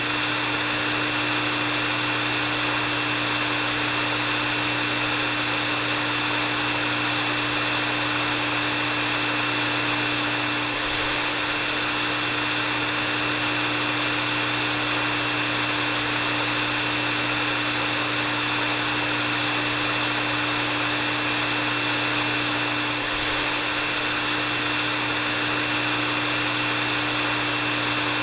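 Hair dryer running steadily: a constant rush of blown air with a steady low motor hum and a thin high whine over it.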